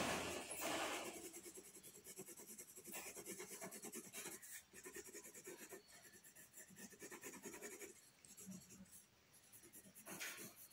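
Graphite pencil shading on paper: faint, quick, repeated scratching strokes as the lead is worked back and forth. A louder rushing noise fades out in the first second or so.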